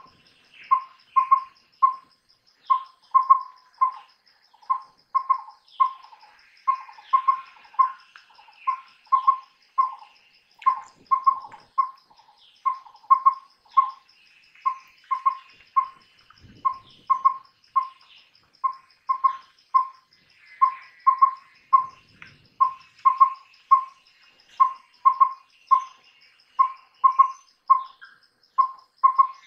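Collared owlet (collared pygmy owl) calling: mellow, whistled toots at one pitch, in four-note phrases repeated about every two seconds, over a faint steady insect trill.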